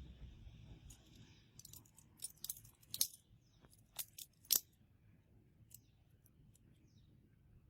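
Metal clicking and clinking, a quick run of sharp clicks over a few seconds with the loudest about three and four and a half seconds in, then a few faint ticks: the handles of a handmade butterfly knife clacking against each other and the blade as it is flipped.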